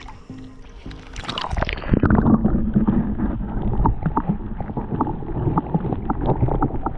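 Water splashes about a second in as the camera goes under the surface. Then the river is heard underwater through the camera housing: a muffled, low gurgling rumble of moving water with scattered small clicks.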